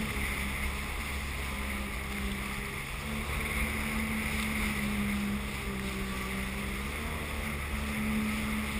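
Sea-Doo personal watercraft engine running steadily under way, its pitch holding nearly constant, over a rush of wind and water.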